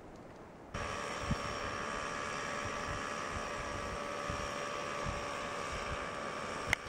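A steady droning noise with a few thin steady tones running through it that cuts in abruptly under a second in, with low irregular thumps like wind buffeting the microphone. A single sharp click near the end.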